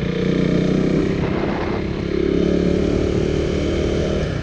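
KTM Duke 390's single-cylinder engine running under way, a steady engine note with a slight change in pitch about two seconds in.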